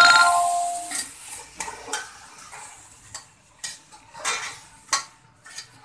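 Metal slotted spatula scraping and clinking against an aluminium cooking pot while peas and potatoes are stirred, in short separate strokes about every half second to second. A ringing tone fades out over the first second.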